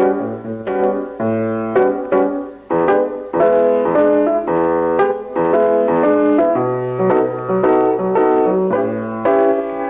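Piano music: chords struck one after another over a low bass line, each held and dying away.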